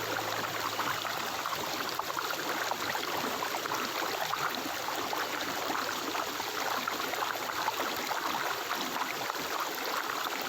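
Flowing stream water, a steady rushing and trickling, under a low held note of soft background music that fades out about eight seconds in.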